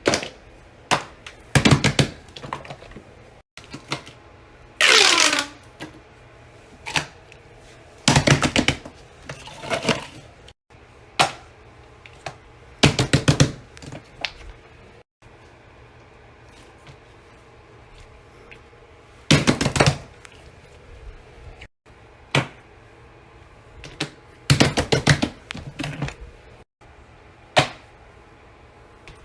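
Bursts of clicks, taps and knocks, in irregular clusters, from handling fidget toys. About five seconds in there is one falling whistle-like glide.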